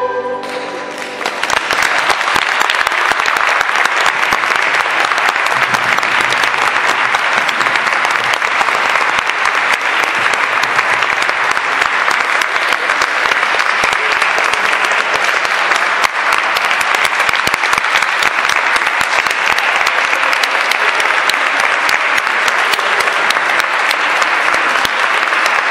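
Audience applauding steadily, starting about a second in as the last sung chord dies away.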